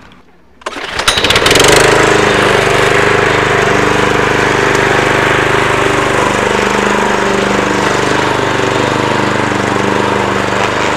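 Lawn mower starting up about a second in, then running steadily as the grass is cut.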